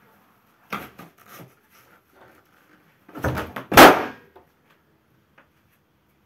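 Large red latex balloon stomped on with a bare foot: a few softer thumps about a second in, then a cluster of harder stomps and the balloon bursting with a loud bang just under four seconds in.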